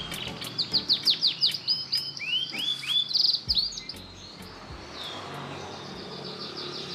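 Male domestic canary singing: fast trills and quick downward-sweeping notes, loud for about the first four seconds, then a softer run of rapid repeated notes. It is the full, vigorous song (gacor) of a canary that has come out of its molt and into breeding condition.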